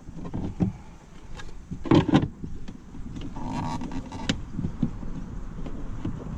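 Hard plastic knocks as a trolling motor's mount is handled and seated in a kayak's hatch, the loudest a double knock about two seconds in. A short steady whirr sounds about three and a half seconds in.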